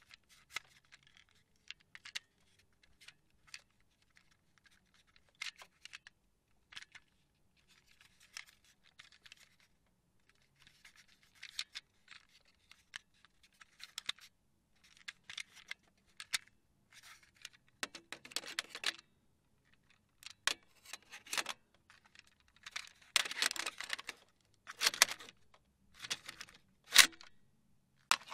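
Car cassette tape deck being operated by hand: a cassette handled, pushed in and ejected, giving a string of small plastic clicks, clacks and rattles. The handling grows busier and louder in the second half, with one sharp clack near the end.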